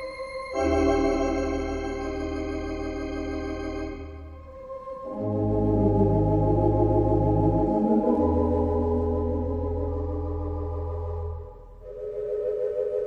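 Organ playing slow, held chords over deep pedal bass notes, with an inner voice moving under the chord in the middle. The sound dips briefly about four seconds in and again near the end, where a quieter chord with a wavering tremulant follows.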